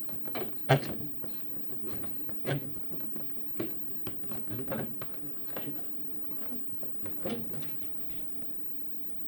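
Stiff paper being handled and worked by hand: irregular light knocks, taps and rustles, the sharpest about a second in, over a faint steady hum.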